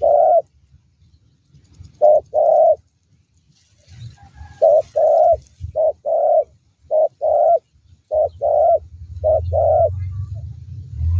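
Spotted dove cooing: repeated two-note coos, a short note followed by a longer one, about seven times, coming closer together after the first few. A low rumble builds over the last three seconds.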